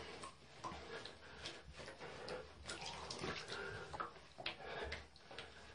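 Faint splashing and sloshing of shallow bathwater as hands rub and wet a cat in a bathtub, a string of brief soft splashes.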